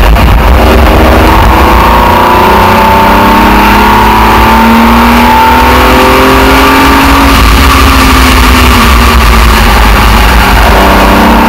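Aston Martin DBR1 tribute race car's engine running hard at speed, heard from a camera on the outside of the body. Its pitch climbs in the first few seconds, eases down past the middle and climbs again near the end, over a heavy wind rumble on the microphone.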